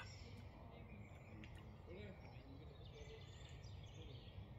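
Near silence: faint woodland ambience with a few distant bird chirps.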